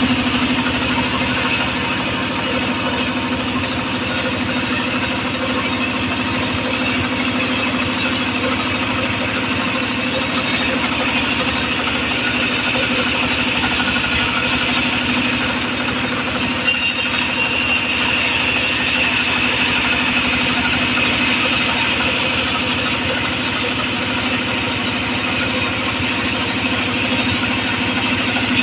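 A homemade circular saw rig running steadily, its engine held at an even, unchanging speed.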